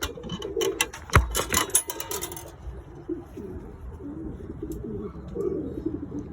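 Pigeons cooing in a loft, with a flurry of clicks and knocks in the first two seconds and one loud knock about a second in.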